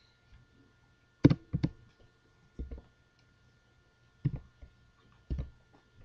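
Scattered clicks and knocks of a computer keyboard being used close to the microphone, coming in small clusters a second or so apart, over a faint steady high whine.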